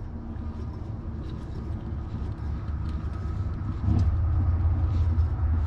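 A low rumble that grows louder about four seconds in, with faint ticks and rubbing as the plastic lock ring of a Sta-Rite pool pump is turned by hand to seat it tighter.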